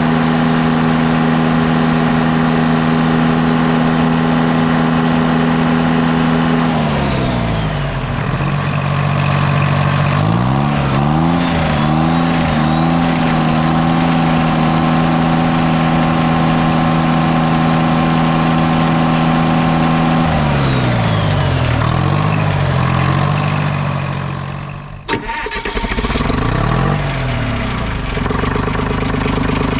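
Detroit Diesel 3-53T turbocharged three-cylinder two-stroke diesel running cold after a start at about freezing, with a high whine over the engine note. Its speed drops about seven seconds in and wavers up and down, holds steady, then drops and wavers again. A single sharp click comes about twenty-five seconds in.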